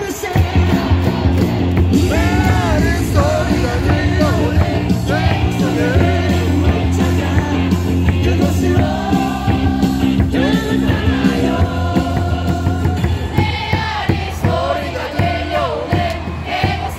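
An upbeat baseball cheer song over a stadium sound system: a sung melody over a steady bass beat, with the crowd yelling along.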